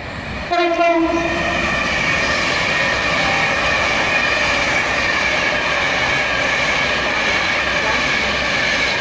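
Virgin Pendolino (Class 390) electric tilting train sounding one short horn blast, about a second long, as it approaches. It then runs through at speed with a loud, steady rush and a high whine.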